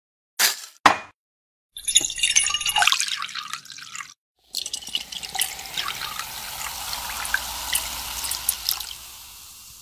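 Two short knocks of ice against a glass, then a rattling pour from a metal cocktail shaker tin into a tall glass for about two seconds. After a short gap comes a long steady pour of water onto the frothy drink, with fine crackling from the foam, fading out near the end.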